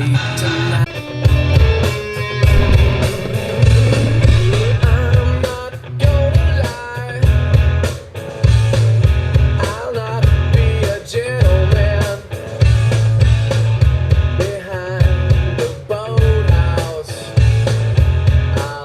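Rock music with electric guitar, singing and heavy pulsing bass, played through a Jeep Wrangler JK's Kicker 6.5-inch door speakers.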